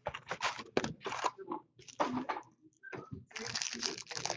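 Hands handling trading cards and their packaging: irregular rustling, crinkling and crackling, busier near the end.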